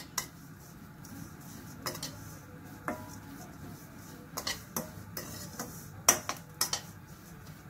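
A metal spoon stirring vermicelli in a kadhai as it fry-browns, scraping and clinking against the pan in irregular knocks about a second apart, coming quicker in the second half.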